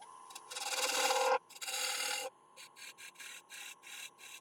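A turning tool cutting the rim of a damson bowl spinning on a wood lathe, making a scraping hiss. There are two longer passes, then a run of short quick touches, over a steady whine.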